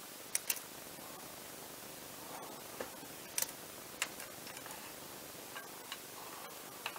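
Sharp small clicks and taps of parts being fitted by hand into the rear of a Nikon AF-S DX 18-105mm zoom lens, a small screwdriver among them: about ten irregular ticks over a faint hiss, the loudest two close together in the first half-second.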